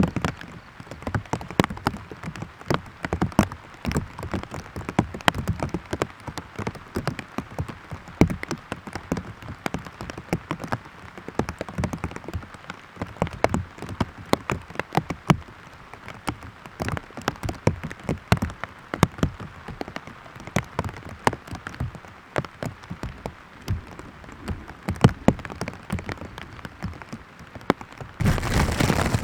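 Rain falling, with many separate drops tapping sharply and irregularly on a nearby surface over a soft hiss. Near the end the rain turns into a louder, even hiss.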